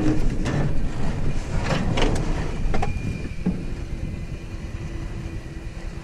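Dead backhoe being winched onto a flatbed trailer: a steady low rumble with a few sharp clunks and creaks in the first three seconds as it strains over a wheel chock on a flat tire.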